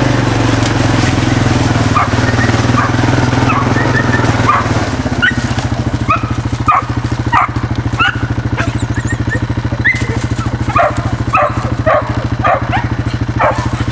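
Tree dogs barking at a treed cat: short repeated barks that come thick and fast from about six seconds in, the dogs' signal that the quarry is up the tree. An engine runs underneath and settles to a steady idle about five seconds in.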